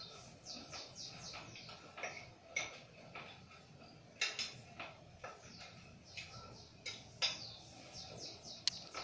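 A fork clinking against a plate several times, the sharpest strikes about four and seven seconds in, while a bird in the background sings runs of quick downward-sliding chirps.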